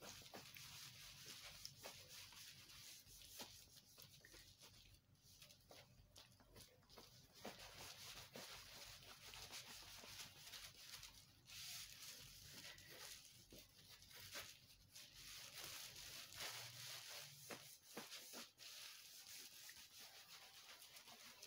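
Faint rubbing and rustling of a cloth wiping a scanner's glass pane, coming in irregular strokes with small clicks scattered through.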